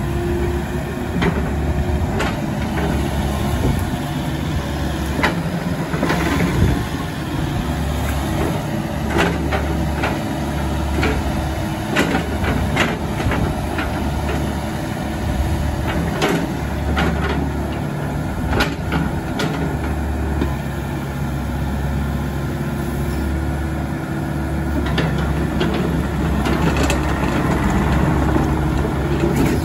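Volvo ECR88D 8.8-tonne excavator's diesel engine running under load as the machine works its hydraulics and moves about on concrete. A low drone swells and drops in stretches, and many sharp clanks and knocks come through it.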